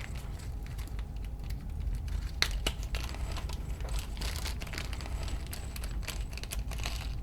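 Small plastic parts bag crinkling as it is handled and opened, with scattered light clicks and rustles of small hardware.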